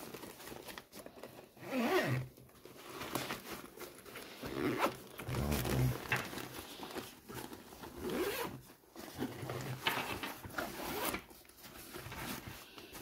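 Zippers on a fabric bicycle rack trunk bag being pulled open and shut in several separate short strokes, with the rustle of the bag's fabric as it is handled.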